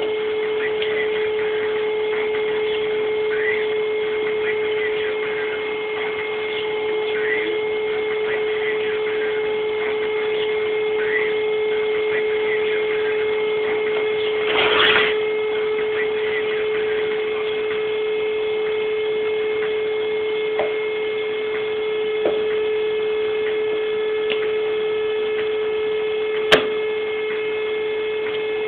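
Steady electrical hum held on one pitch, with fainter steady tones above it. A short rush of noise comes about halfway through, and a single sharp click near the end.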